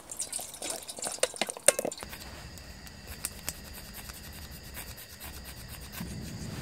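Water poured from a plastic bottle into an aluminium camping pot, splashing and clinking for about two seconds. A few light clicks follow as the portable gas canister stove's control is worked.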